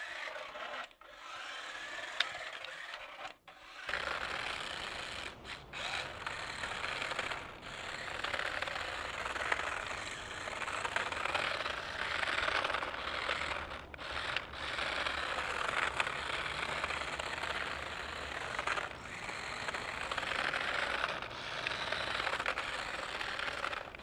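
Small 1:24-scale 4WD RC car running, its little tyres scraping and rolling over rough asphalt in a steady gritty noise with short breaks now and then. In the first few seconds it skids on carpet instead, more softly.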